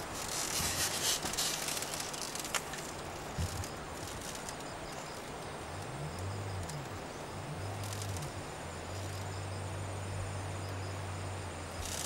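Insects chirring in hillside grass and forest, loudest in the first second or so and again at the very end, over a steady hiss and a faint low hum.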